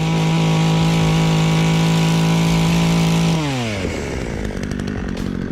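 Hyundai HYC6220 two-stroke petrol chainsaw held at full throttle with a steady, high engine note. About three and a half seconds in, the throttle comes off and the pitch falls away quickly, and the saw runs on at a lower, rougher speed.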